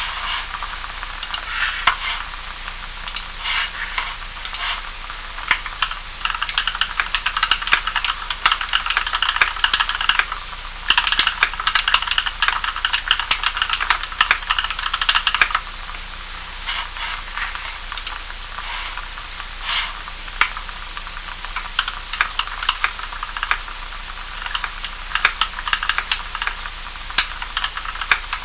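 Typing on a mechanical keyboard with Kailh Cream linear switches, lubed with Krytox 105 oil and fitted with 75 g springs and switch films, and Permatex-greased Equalz stabilizers. The keystrokes come in a fast, dense run through the middle and are more scattered before and after, over a steady hiss.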